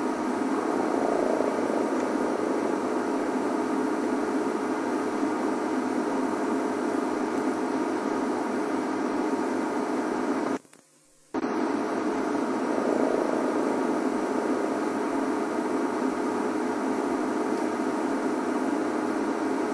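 Safari game-drive vehicle's engine idling with a steady low hum. It cuts out completely for about half a second midway, then resumes.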